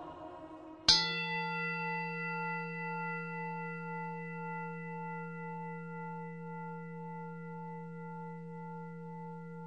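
A bell is struck once about a second in. Its several steady ringing tones hold and fade slowly with a gentle wavering, then cut off suddenly at the end.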